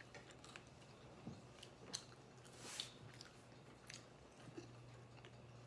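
Faint mouth sounds of someone chewing pizza: scattered soft smacks and clicks. A low, steady hum runs underneath.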